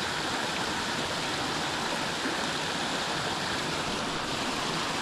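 Water rushing steadily over a small river spillway, an even, unbroken rush.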